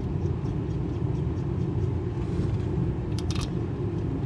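Steady low rumble, with a short cluster of light metallic clicks about three seconds in as parts of the planetary hub's bearing assembly are handled.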